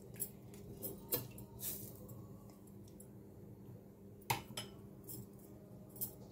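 Metal ladle clinking and scraping against a metal pot and a serving bowl as curry is ladled out: several sharp clinks, the loudest about four seconds in.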